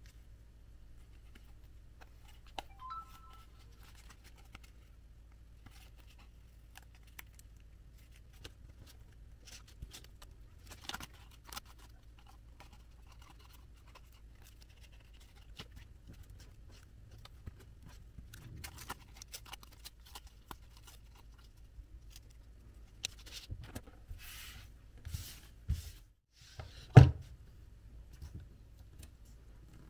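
Cardboard pieces being handled and worked by hand: scattered rustles, scrapes and small clicks, with one loud sharp knock near the end.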